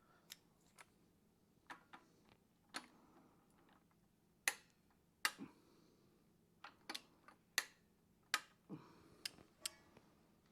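Tools and engine parts being handled on an engine short block: sharp, irregular clicks and taps, about fifteen over ten seconds, a few louder ones in the middle.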